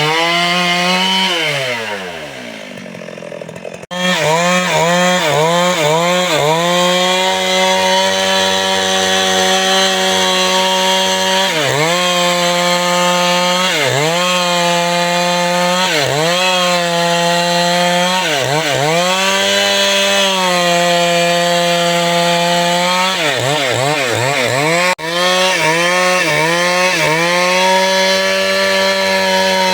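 Chainsaw cutting wood, its engine at high revs with the pitch dipping and recovering again and again as the chain bites and clears. Near the start it falls back toward idle, then revs sharply back up about four seconds in.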